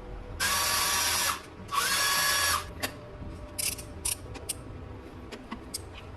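A power tool motor runs in two bursts of just under a second each, its whine rising as the second burst starts. A few short clicks and brief high hisses follow.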